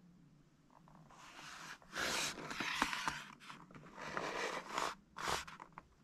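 A cardboard box being turned over in the hands, rasping and scraping against the fingers in several bursts. The loudest stretch comes about two seconds in, with a short sharp scrape near the end.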